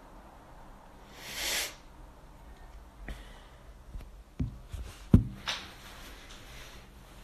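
A short, noisy breath close to a phone microphone about a second in, then a few soft clicks and taps of the phone being handled, the sharpest about five seconds in.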